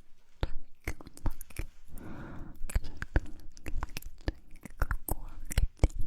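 Close-miked ASMR mouth sounds: a quick, irregular run of wet lip and tongue clicks and pops, with a soft breathy sound about two seconds in.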